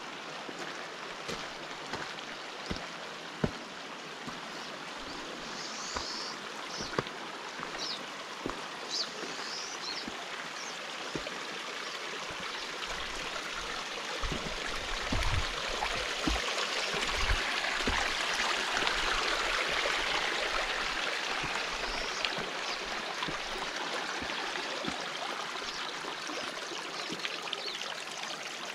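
Rushing water of a mountain stream, a steady hiss that swells to its loudest about two-thirds of the way through and then eases. Footsteps crunch at a walking pace on a rocky trail, with a few short high chirps in the first third.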